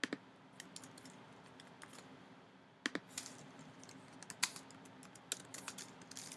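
Typing on a computer keyboard: faint, irregular key clicks in short runs, with a pause near the middle.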